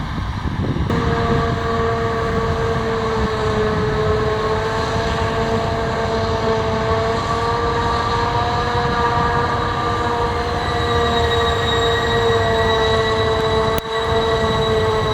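Heavy farm machinery running under load: a steady high whine of several tones over a low engine rumble, setting in about a second in.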